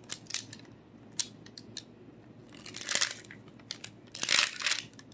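Parchment paper rustling and crinkling on a baking sheet as soft baked apple halves are lifted and flipped over by hand, in a few short crackles, the longest near the end.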